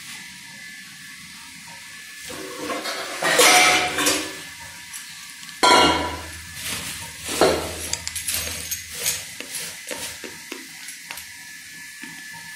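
Stainless-steel bowls and pots clattering and clanking as they are picked up and set down: a burst of clatter a few seconds in, one loud clank about halfway through, then lighter clinks.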